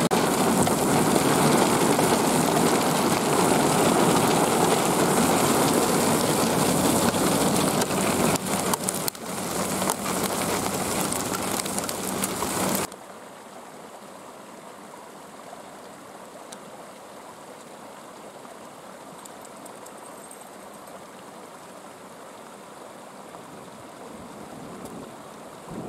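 Hail pelting down onto and around a vehicle in a dense, loud, steady patter. About 13 seconds in it cuts off abruptly to a far quieter, steady faint hiss.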